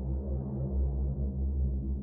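Ambient electronic music played as a surround-sound test: a deep, steady bass drone with layered low tones and a soft swell in the middle range, with no high sounds.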